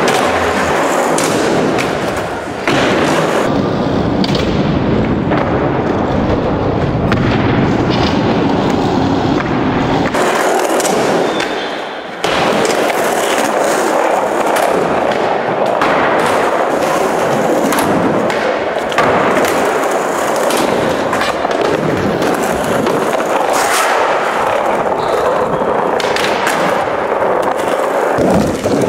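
Skateboard wheels rolling hard on concrete, broken by the clacks and slaps of the board popping and landing, loud and close on the microphone. The character shifts abruptly a few times.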